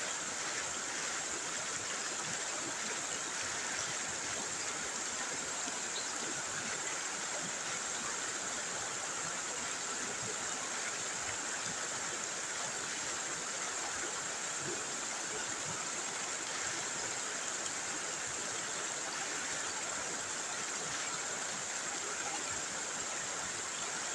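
River water flowing steadily over rocks.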